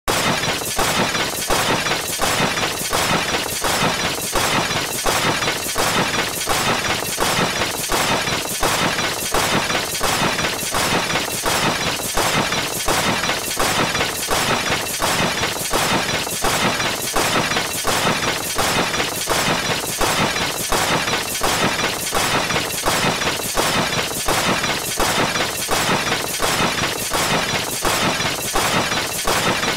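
Cartoon crash sound effects played back to back in rapid fire: one crash after another, evenly spaced and at a steady level, with no pause.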